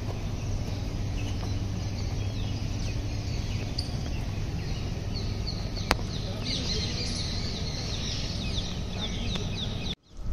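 Outdoor ambience with small birds chirping, a quick run of short chirps thickening about six seconds in, over a steady background hiss; a single sharp click near the six-second mark.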